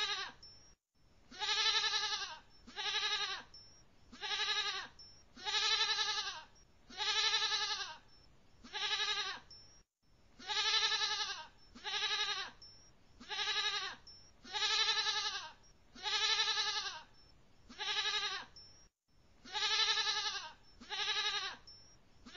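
Goat bleating over and over, a short call roughly every second that rises and falls in pitch. The same run of calls repeats about every nine seconds, as a looped recording.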